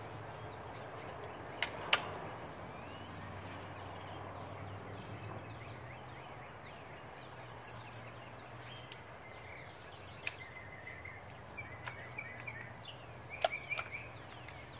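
Outdoor ambience: faint bird chirps and short twittering calls, with a few sharp clicks and a low steady hum underneath.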